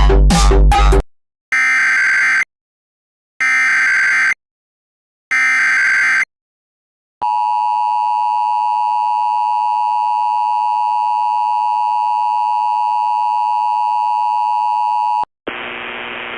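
Emergency Alert System (EAS) tones: three short bursts of warbling SAME header data about a second apart, then the steady two-tone EAS attention signal held for about eight seconds. Electronic music cuts off about a second in, and near the end a thin, radio-quality voice begins reading the warning.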